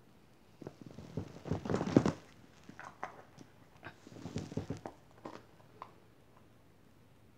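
Handling noises: rustling and light clicks and knocks from things being handled in the hands. They come in two bursts, the first loudest about two seconds in and the second around four to five seconds in.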